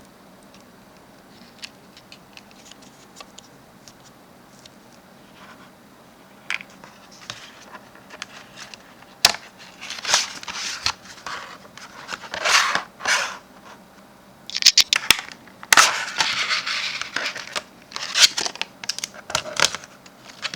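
Hands handling computer parts and their packaging: light clicks and taps at first, then from about halfway bursts of crinkling and tearing with a few sharp clicks.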